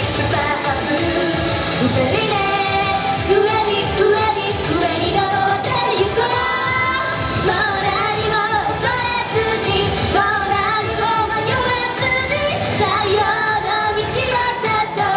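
A young woman singing a J-pop song live into a handheld microphone, with pop backing music.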